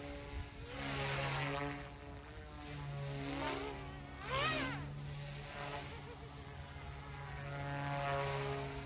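Goosky S2 micro electric RC helicopter in flight: a steady rotor and motor hum under a whine that rises and falls in pitch as it moves about, loudest about four and a half seconds in.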